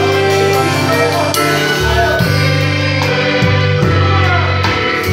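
Live gospel worship music with singing voices, heard close up from a drum kit: drum and cymbal hits keep the beat under a steady, changing bass line.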